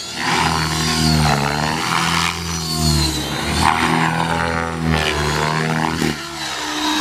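Align T-Rex 600E electric RC helicopter flying aerobatics: the rotor blades and the motor whine keep rising and falling in pitch as it manoeuvres.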